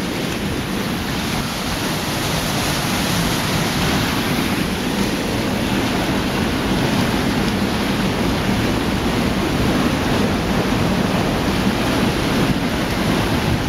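Whitewater rapids rushing through a narrow rock canyon, a loud steady roar.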